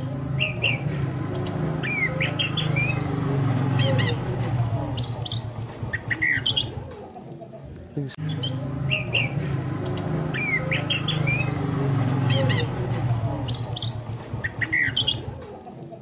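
Chestnut-capped thrush (anis kembang) song: quick high chirps and short whistled sweeps over a steady low hum. The same passage repeats about every eight seconds, as a looped lure recording does.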